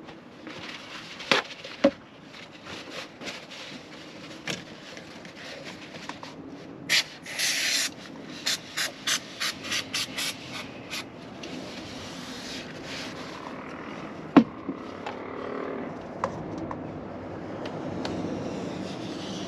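Aerosol can of silicone spray hissing onto a caravan window's trim channel: one longer spray, then a quick run of short squirts, about three a second. Around it, paper towel rustles and a few sharp knocks from handling.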